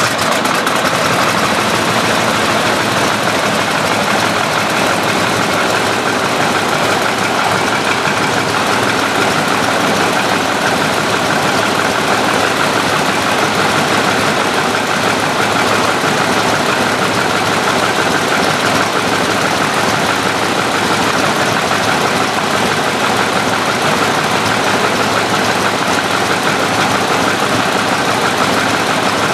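Boeing-Stearman Model 75 biplane's radial engine and propeller running steadily on the ground, loud and even throughout.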